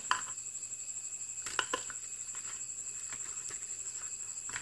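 A small cardboard box and its paper leaflet being handled and opened: a few light taps and rustles, the sharpest just after the start and about a second and a half in, over a steady high-pitched whine.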